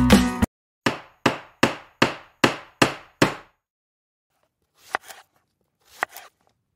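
Seven evenly spaced hammer strikes, about two and a half a second, each dying away quickly. Then two knife chops on a wooden cutting board, about a second apart.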